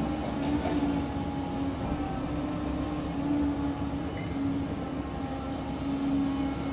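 Volvo crawler excavator's diesel engine and hydraulics running steadily while it digs, a low rumble with a steady hum held at one pitch.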